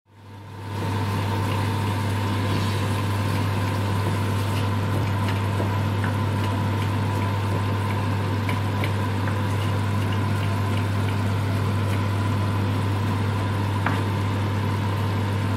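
Chicken curry simmering in a frying pan on a gas hob: a steady hiss with scattered small pops, over a steady low hum.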